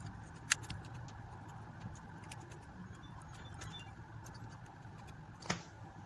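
Small clicks and taps of RC wheel parts and screws being handled, with two sharper knocks about half a second in and near the end, over a steady background hiss.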